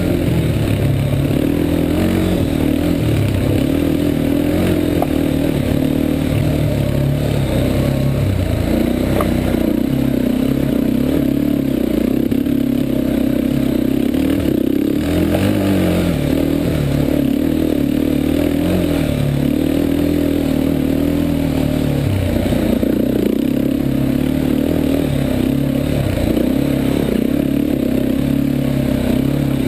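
Yamaha Warrior 350 quad's single-cylinder four-stroke engine being ridden hard, its pitch rising and falling continuously with the throttle.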